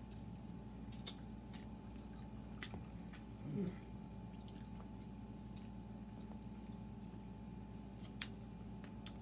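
Close-up chewing of pizza and chicken wings, with wet mouth sounds and scattered sharp clicks, over a faint steady hum. A brief vocal sound comes about three and a half seconds in.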